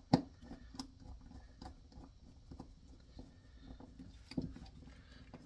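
Small handling noises of a stubby screwdriver tightening the neutral wire's terminal screw in a three-prong plug: a sharp click just after the start, then faint scattered ticks and scrapes, with a louder bump a little past four seconds in.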